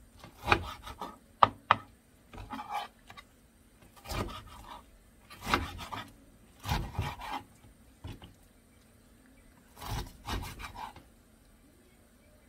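Chef's knife cutting napa cabbage kimchi on a plastic cutting board: a series of separate cuts at an uneven pace, with one sharp click about a second and a half in. The cuts stop near the end.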